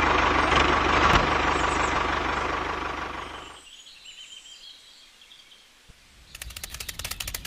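Tractor engine running steadily, fading out about three and a half seconds in. A couple of seconds later a fast, even run of ticks starts.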